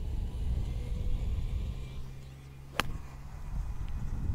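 An 8-iron striking a golf ball off turf on a full swing: one sharp click about three seconds in, over a low steady background rumble. The ball is hit down on with a de-lofted club face, a compressed strike meant to send it out low with a lot of backspin.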